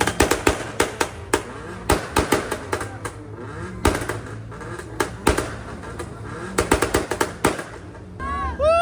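Car exhaust popping and banging in rapid, irregular cracks over a revving engine, the sound of a pops-and-bangs or anti-lag tune. A loud pitched sound with a rising-falling pitch starts near the end.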